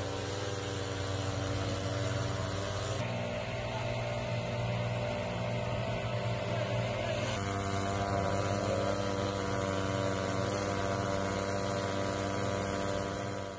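Small engines of portable forest-firefighting blowers running steadily, a droning hum. The sound changes abruptly twice, about 3 and 7 seconds in.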